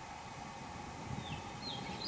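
Quiet outdoor background with a few short, high bird chirps that fall in pitch, starting about a second in.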